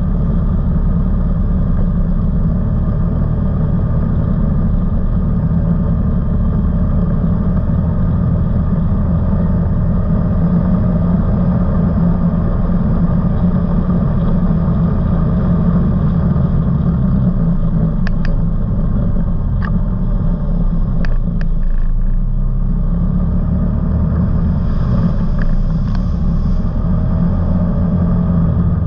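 Off-road vehicle's engine running steadily under way on a trail, a loud low drone that eases off for a few seconds midway. A few sharp clicks come during the easing.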